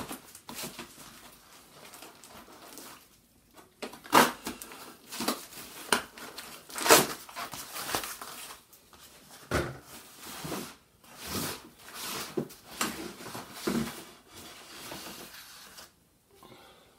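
Plastic packaging wrap crinkling and tearing in irregular rustles as it is cut open with a knife and pulled off a boxed bow. The loudest rustles come about 4 and 7 seconds in.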